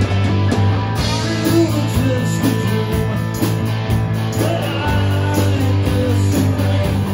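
Rock band playing live: electric guitar melody with bending, wavering notes over long held bass notes and drums with regular cymbal strokes.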